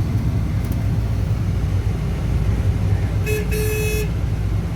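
Steady low engine drone, with a horn tooting in two short blasts about three seconds in.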